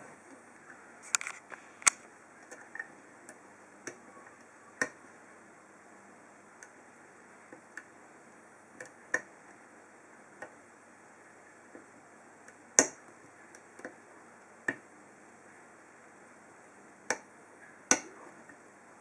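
Irregular sharp metallic clicks and ticks from picking a 30 mm Lince padlock with a hook pick: the pick working the pin stacks in the cylinder. The loudest clicks come about two seconds in, near the middle and near the end.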